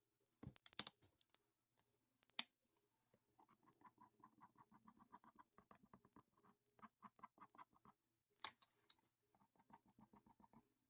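Faint, rapid back-and-forth scraping strokes, about five a second, typical of wood being worked by hand with sandpaper, a file or a rasp. There are a few sharp clicks near the start and a single knock about two-thirds of the way in.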